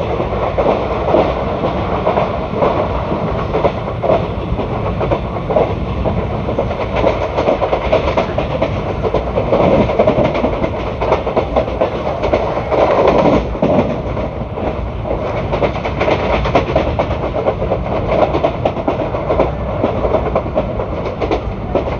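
Indian Railways ICF passenger coaches running along the track: a steady rumble of wheels on rail, with clickety-clack and a constant scatter of short clicks and knocks.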